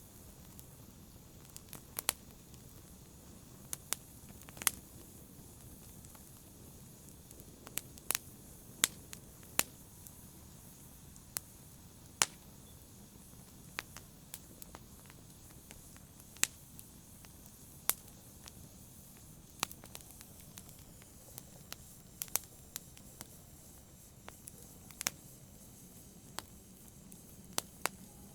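Wood fire crackling in a fireplace: irregular sharp pops and snaps, roughly one a second, over a soft steady hiss of the burning fire.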